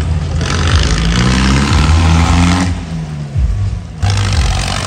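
Tractor diesel engine revving, its pitch rising for a couple of seconds and then falling away.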